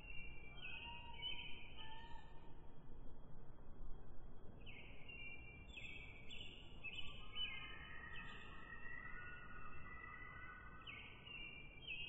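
Faint background music of short high notes in groups, over a steady low hiss.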